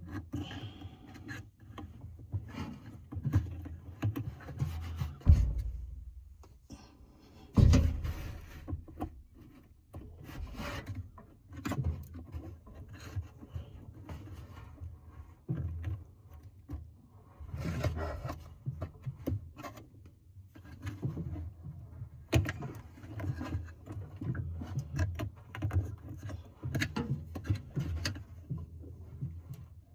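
Hands working a motor belt onto a washing machine's pulleys: irregular rubbing and scraping with scattered knocks, and two louder thumps about 5 and 8 seconds in.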